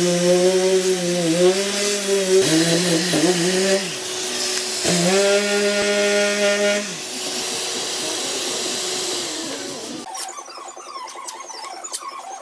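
An electric power tool running with a high whine and hiss. It runs twice for a few seconds each, its pitch dipping briefly as it bogs under load. It then winds down to a fainter steady hum.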